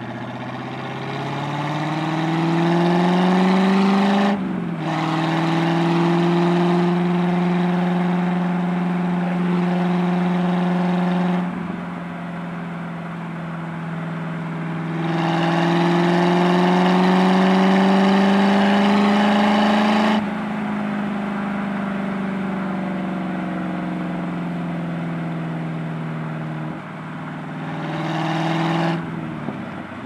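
1993 Chevrolet Corvette's V8 engine and exhaust heard from inside the cabin, pulling up through the revs, with a brief break for a gear change about four seconds in. It then runs steadily under load, eases off, accelerates again for about five seconds in the middle, backs off to a steady cruise, and gives a short rise and fall in revs near the end.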